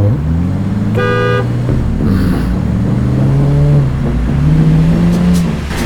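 A single short car-horn honk about a second in, over a car engine pulling away and accelerating, its pitch climbing in several steps.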